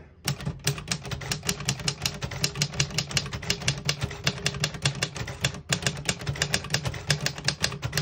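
Keys and typebars of a 1958 Royal Speed King manual portable typewriter striking the platen in a fast, steady run of clicks, about six strokes a second, over a faint steady low hum.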